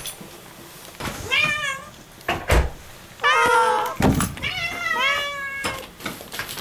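Domestic cat meowing several times in greeting: short calls that rise and fall, the longest about three seconds in. There is a sharp knock about two and a half seconds in and a soft thump around four seconds.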